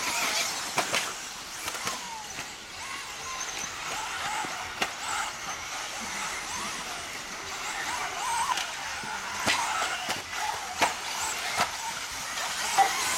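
Electric 1/10 off-road RC buggies racing on a dirt track: motor whine rising and falling with the throttle over a hiss of tyres on dirt, with several sharp clicks and knocks scattered through.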